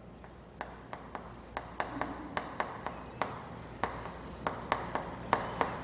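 Handwriting: a pen tip tapping and scratching on a writing surface as characters are written, a sharp tick about three times a second.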